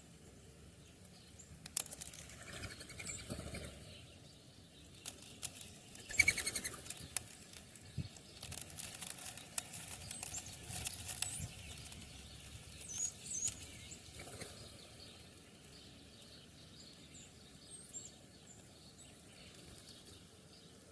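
Birds' wings flapping in several flurries for about twelve seconds, loudest in the middle, with a few faint short chirps. It goes quieter in the last few seconds.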